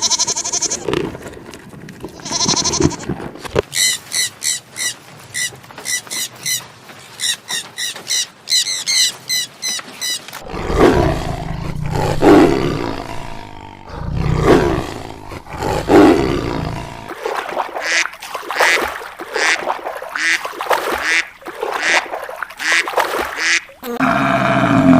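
Calls of several different animals one after another. First comes a fast run of short, high-pitched calls, then a few deep, loud calls in the middle, then a quick train of short calls near the end.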